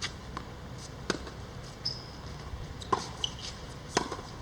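A few light, sharp knocks and taps at irregular intervals, about five in all, over a faint steady hum.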